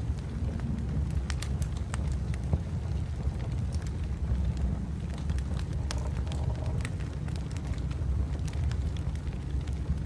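Wood fire crackling, with frequent sharp pops and snaps scattered irregularly over a steady low rumble.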